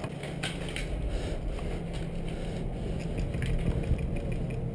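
Footsteps and gear rustle on a debris-strewn floor: irregular small crunches and scuffs over a steady low hum.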